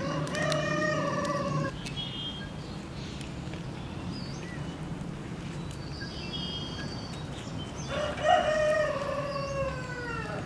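A rooster crowing twice: a short crow near the start and a longer one near the end that falls in pitch as it trails off.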